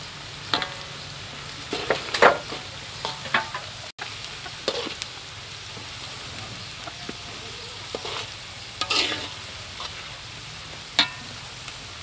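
A chopped ingredient frying in hot oil in a steel wok with a steady sizzle, while a metal spatula stirs and scrapes against the wok in short strokes every second or two.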